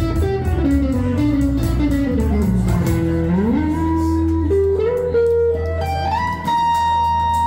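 Two guitars, one of them electric, playing an instrumental blues passage. A single line of notes steps downward, then climbs in steps to a high note that is held ringing over a sustained low note for the last second or so.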